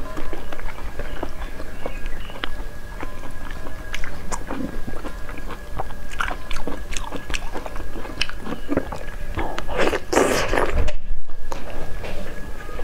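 Close-miked eating sounds of braised meat being eaten by hand: wet chewing, lip smacks and short sucking clicks, with a louder, longer slurp about ten seconds in. The sound cuts out briefly just after that.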